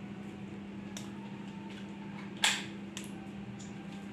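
Sanaji OD19 spring-piston air rifle firing a single shot, a sharp crack about two and a half seconds in, with a faint click about a second in.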